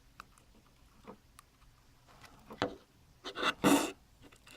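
Small scattered clicks and rustles of Dupont jumper wires being pulled off and pushed back onto pin headers, with a louder brief rustle about three and a half seconds in.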